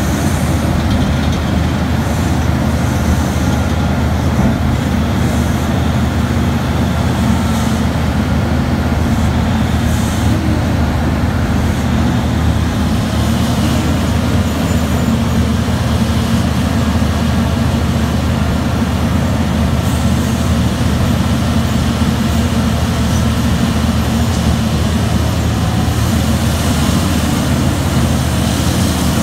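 Terex RH170 hydraulic mining shovel running under load as it digs into the face and lifts a full bucket: a loud, steady low drone of engine and hydraulics.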